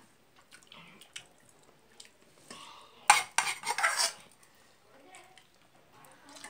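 Fingers mixing rice on a stainless steel plate: scraping and clinking against the metal, faint at first, with a loud cluster of scrapes and clinks from about three to four seconds in.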